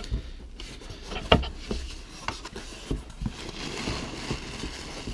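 Cardboard box packaging being handled and worked open by hand: a few light knocks and taps, then a steady rubbing scrape, like a lid or insert sliding against cardboard, during the second half.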